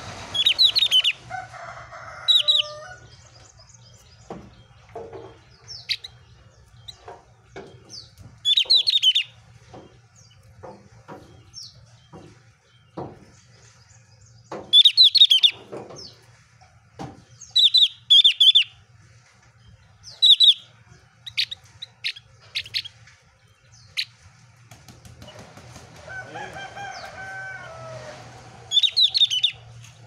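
Caged ovior (opior) songbird giving repeated short bursts of loud, high, rapid chirping every few seconds, with soft knocks between the bursts. A lower, wavering call from another bird in the background sounds briefly near the start and again near the end.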